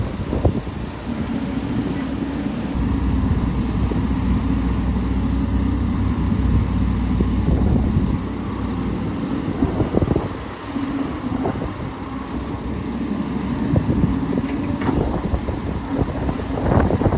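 Hydraulic excavator's diesel engine running, with its deeper working note coming in twice as it takes load, and occasional knocks and clanks.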